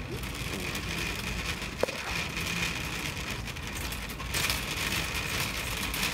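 Wire shopping cart rolling over a hard store floor, its wheels and basket rattling with a steady noise. There is a single sharp click about two seconds in, and the rattle grows louder about four seconds in.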